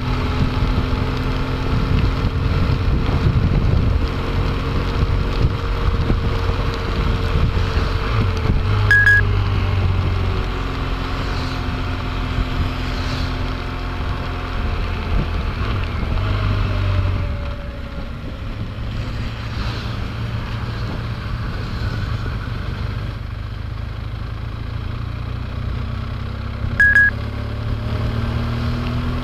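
Motorcycle engine running at road speed in the rain, with wind rushing past and the hiss of wet road, its note falling and rising as speed changes. Two short high beeps sound, about 9 seconds apart from each other near the middle and near the end.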